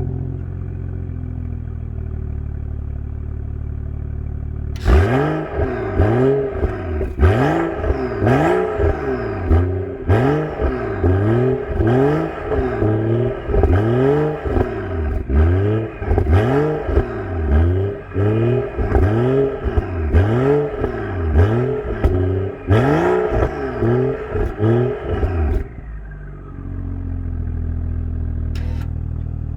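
Stock exhaust of a BMW 435i's 3.0-litre turbocharged straight-six idling, then blipped again and again, about one quick rise-and-fall in revs a second for some twenty seconds, before it settles back to a steady idle.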